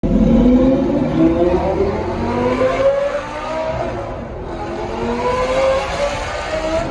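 Lamborghini Gallardo Superleggera's V10 with an F1-style aftermarket exhaust, accelerating hard in a tunnel: the engine note climbs, drops at a gear change about three seconds in, then climbs again.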